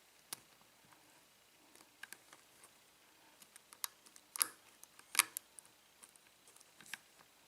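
Irregular small metallic clicks and taps of a lock pick probing the pin stack of an American Lock 5200 series padlock during single-pin picking, with two louder clicks around the middle.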